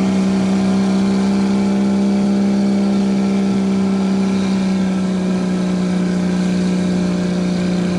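Jeep's engine running at high, steady revs under load as the Jeep ploughs slowly through deep mud.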